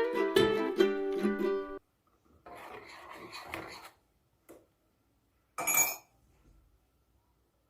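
Light plucked-string background music that cuts off abruptly about two seconds in. After it come a faint rustling, a single click, and a short, sharper noise about six seconds in.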